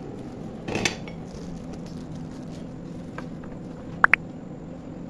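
Stainless steel espresso-machine parts being handled: a short clatter just under a second in, then two quick ringing metal clinks about four seconds in, over a steady low hum.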